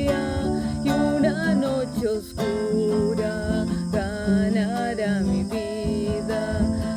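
Acoustic guitar accompaniment with a woman's voice carrying a gliding melody over it.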